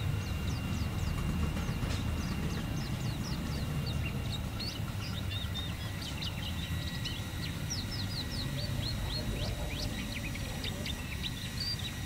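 Caged white-eye (pleci) singing a long, fast run of high, thin chirps over a steady low rumble.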